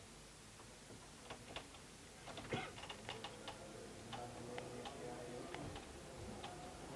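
Faint, irregular clicks and taps from a laptop's keyboard and trackpad as someone navigates, with one louder knock about two and a half seconds in.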